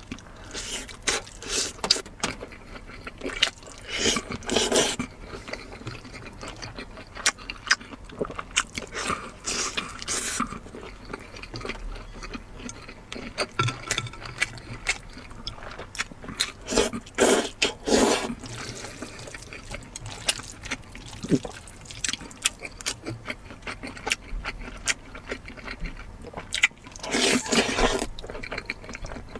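Close-miked eating of spicy lamb: wet chewing, lip smacking and slurping. There are many short clicks and several longer wet bursts, the biggest a few seconds in, around the middle and near the end.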